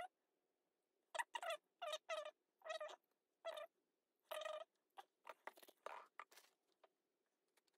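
A run of faint, short, high-pitched squeaks, then several quick hissing spray bursts about five seconds in: a pump sprayer misting CA glue accelerator over a glue-soaked crushed-turquoise inlay.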